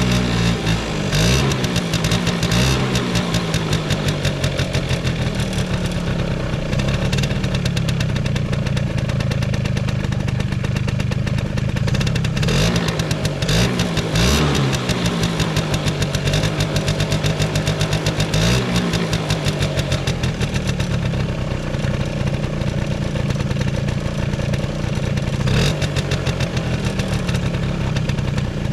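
Suzuki Hi (CA19A) 50cc two-stroke scooter engine running after a cold start, mostly idling, with throttle blips that rise and fall in pitch near the start, about halfway through and again a few seconds later. It runs evenly, with no abnormal noise.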